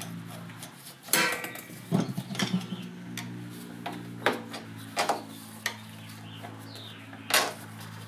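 Scattered sharp clicks and knocks of a screwdriver and hard plastic and metal parts as a golf cart carburetor and its intake fittings are pried and worked loose, about seven separate knocks over a steady low hum.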